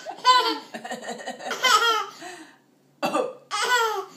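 A woman coughing and a baby laughing at each cough, in two rounds with a short pause between.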